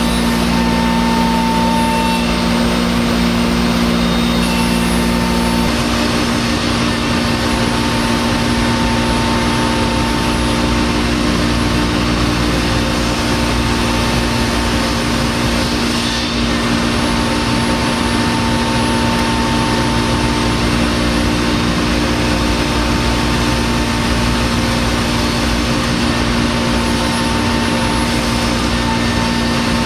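Five-axis CNC router spindle running steadily with an end mill cutting into a wooden block: a steady whine over a constant rush of cutting noise. One lower hum drops out about six seconds in.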